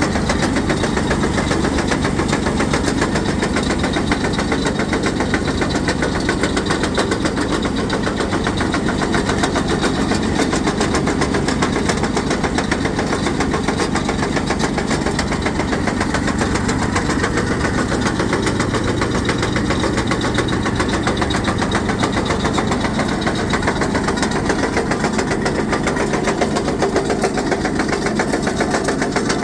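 Ore-milling rock crusher running steadily under load, a dense, rapid, continuous clatter of rock being broken over a steady low hum.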